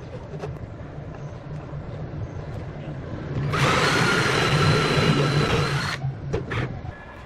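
An electric drill runs for about two and a half seconds, starting a few seconds in and stopping suddenly, with a few sharp knocks just after.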